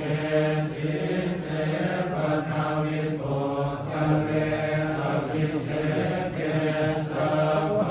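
Thai Buddhist monks chanting together in unison on one low, steady reciting pitch, without pause.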